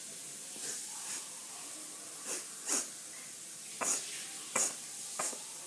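A child sniffing at close range: a series of about seven short, sharp sniffs, the louder ones coming in the second half, over a steady background hiss.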